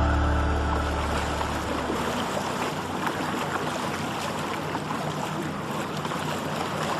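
Water rushing and splashing as a yacht moves at sea, a dense, steady wash of noise; a sustained music chord fades out under it over the first couple of seconds.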